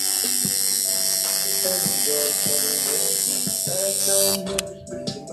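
Electric tattoo machine buzzing steadily while the needle works the skin, then cutting off suddenly about four seconds in.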